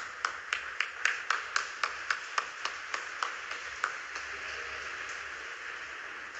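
Applause after a skating performance: one person clapping close to the microphone in sharp, even claps about four a second, over softer applause from the spectators. The close clapping stops about four seconds in, and the softer applause carries on and fades.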